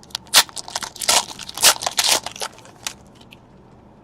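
Plastic trading-card packaging crinkling and crackling as it is handled and torn open, in a series of sharp crinkles that stop about three seconds in.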